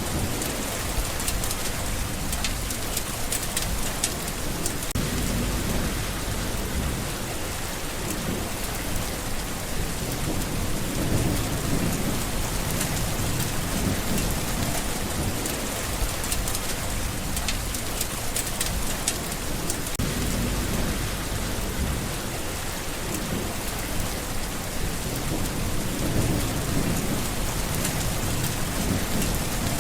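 Steady rain falling on leaves, a dense patter of many small drops, with a low rumble that swells and fades every few seconds.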